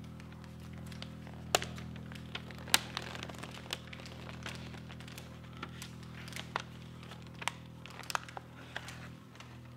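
A sheet of paper being crumpled slowly in the hands, giving irregular sharp crackles, a sound effect for a crackling fire. Underneath runs a low, steady held drone.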